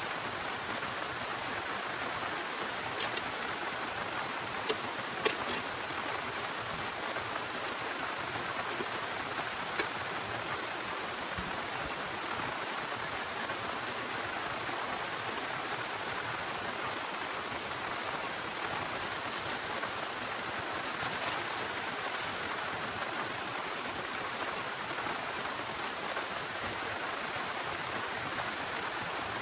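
Heavy rain pouring steadily, with a few sharp taps in the first ten seconds.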